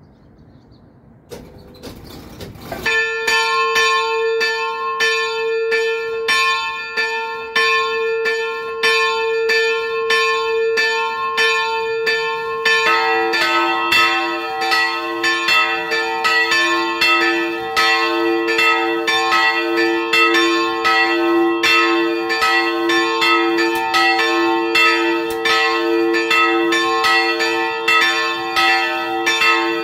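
Two bronze church bells cast by the Nuspicher foundry (1701 and 1714) being swung and rung in their belfry. The higher bell starts ringing about three seconds in, with a clapper stroke on each swing, and a lower-pitched second bell joins about thirteen seconds in, both ringing together in an overlapping peal.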